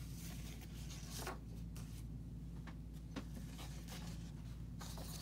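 Quiet room tone: a steady low hum with a few faint rustles and small clicks.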